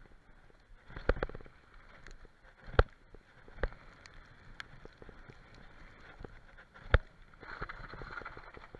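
Downhill mountain bike ridden fast over a rough dirt trail, heard through a handlebar-mounted action camera: constant rattling and clatter of the bike over bumps, with two hard knocks standing out, one about three seconds in and one about seven seconds in. A short rush of noise follows near the end.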